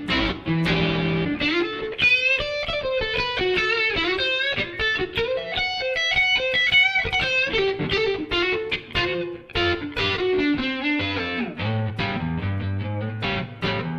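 Strat electric guitar played through a Surprise Sound Lab Flex15 single-ended amp into a 2x12 cabinet, with some overdrive: blues playing, a low riff at first, then high single-note lead lines with bends and vibrato from about two seconds in, going back to a low riff near the end.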